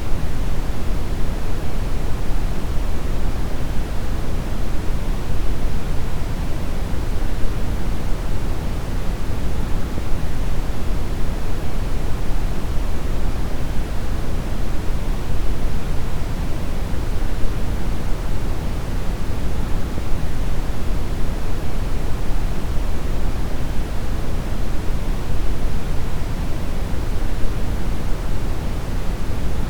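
Steady brown noise: a constant, deep rushing hiss, heaviest in the low end and without any change or rhythm.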